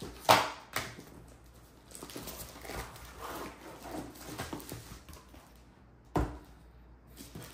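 A cardboard kit box and its packaging being handled: a sharp knock near the start and another about six seconds in, with rustling and scraping of cardboard, tissue paper and plastic wrap between them.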